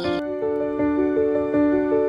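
Soft background music: slow, overlapping keyboard notes, a new note about every half second.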